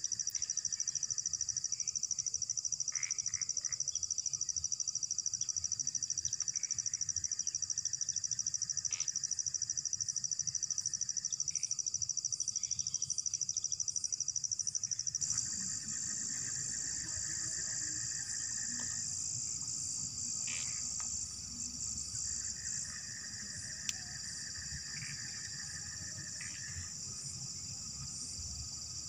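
A night chorus of insects: a dense, steady high-pitched trill, with a second, lower trill that starts and stops in stretches of a few seconds. About halfway through, the chorus changes abruptly and a low rumble comes in beneath it.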